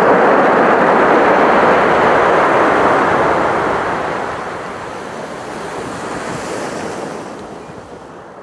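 Ocean surf: the rushing wash of waves, loud for the first few seconds, then easing and fading away near the end.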